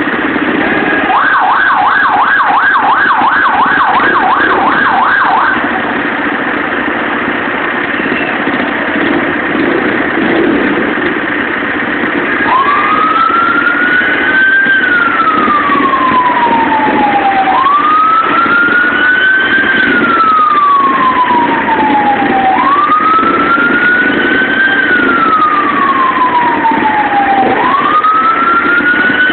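Emergency vehicle siren. It gives a rapid yelp, about three sweeps a second, for a few seconds near the start. From about twelve seconds in it switches to a wail that rises quickly and falls slowly, repeating about every five seconds, over a steady street hum.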